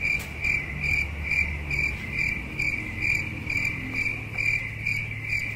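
Electronic warning buzzer in a Mitsubishi Canter truck cab: a high-pitched tone pulsing rapidly, about three to four beeps a second, over a low steady hum.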